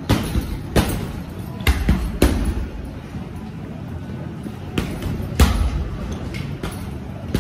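Gloved punches landing on a hanging heavy punching bag: about eight dull thuds at an uneven pace, some in quick pairs, the hardest about five and a half seconds in.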